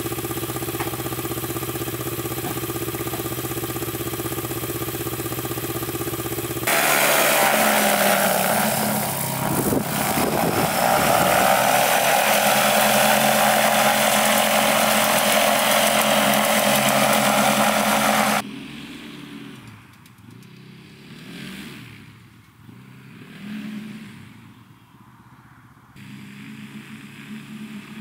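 Ultralight airplane's Yamaha Phazer snowmobile engine turning the propeller through a gearbox: running steadily at idle, then much louder and close up as the plane taxis, then faint and rising and falling from far off, growing again near the end.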